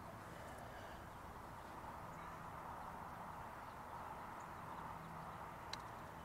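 Faint outdoor background, broken near the end by one short, sharp click of a putter striking a golf ball.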